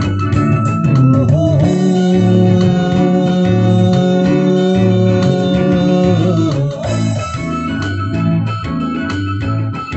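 Live rock band of electric bass, electric guitar, drums and keyboard playing without vocals. About one and a half seconds in, the band holds a long chord over pulsing bass notes for about five seconds, then goes back into the driving rhythm.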